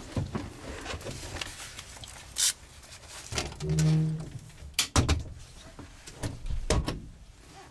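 Scattered clicks and knocks of toggle switches and handling in a light aircraft's cockpit, the pre-start switch setting before the engine is cranked, with a short low hum near the middle.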